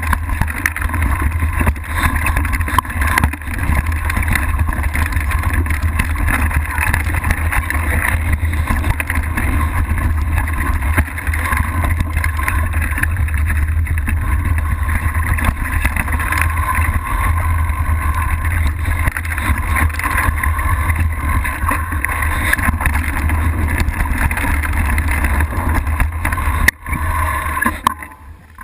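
Wind buffeting the mountain bike's handlebar camera microphone as a steady low rumble, mixed with the knobby tyre rolling over the dirt trail on a fast downhill run.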